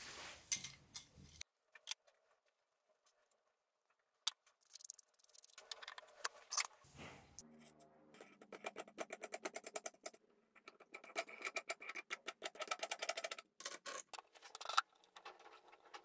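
Quick light metallic clicking and ticking as a washer and nut are handled and run onto an M12 threaded-rod shaft, in dense runs through the second half, with a few separate clicks before.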